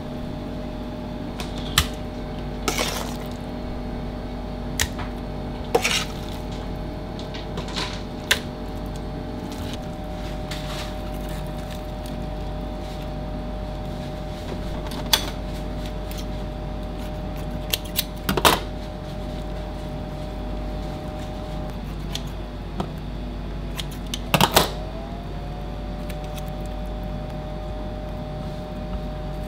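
Steady hum of kitchen machinery holding several even tones, which shift briefly in pitch a little over twenty seconds in. Scattered light clicks and knocks of hands working at ceramic terrine dishes are heard over it.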